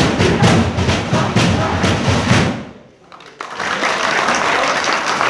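Tokelauan fatele drumming with group singing, a fast steady beat that stops abruptly about two and a half seconds in, ending the dance. After a short lull, applause breaks out.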